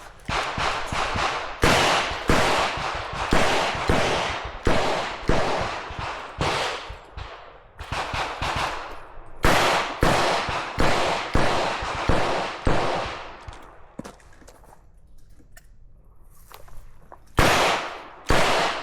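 Revolver firing a rapid string of shots on a competition stage, a shot every half second or so with echoing tails. Near the end the firing stops for about three seconds, then resumes with two more shots.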